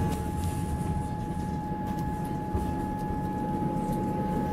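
Passenger train: a steady low rumble with a constant high-pitched whine over it.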